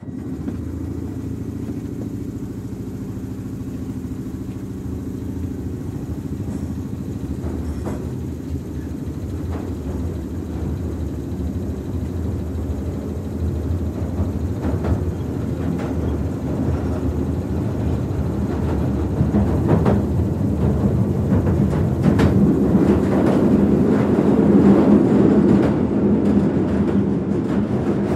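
London Underground Victoria Line train running, heard from inside the carriage: a steady low rumble with a motor hum and occasional clicks and rattles, growing louder through the second half.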